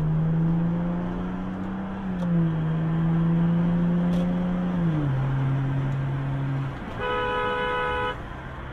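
A car engine drones as heard from inside the car, its pitch creeping up and then stepping down twice as it shifts up through the gears while accelerating. About seven seconds in, a car horn blares for about a second.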